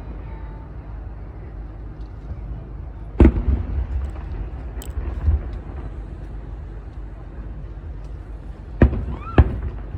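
Fireworks shells bursting: one sharp bang about three seconds in and two more close together near the end, over a steady low rumble.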